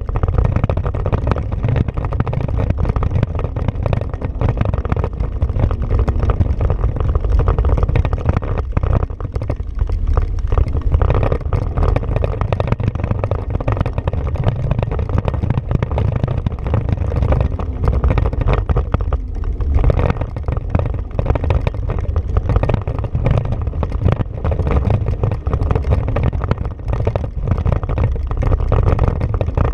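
Honda Pioneer 500 side-by-side's single-cylinder engine running steadily while driving over a bumpy dirt trail, heard from on board. A heavy, continuous low rumble of wind on the microphone and tyres on dirt lies over the engine.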